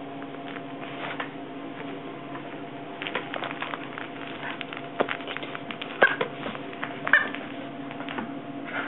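Puppy playing tug with a plush toy on a wooden floor: scuffling, with scattered taps and clicks on the floor, and two short high-pitched squeaks about six and seven seconds in.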